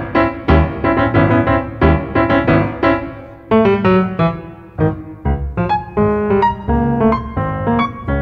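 Steinway grand piano played solo: a classical piece of struck chords and running notes. The playing grows softer about three seconds in, then picks up again with quicker notes.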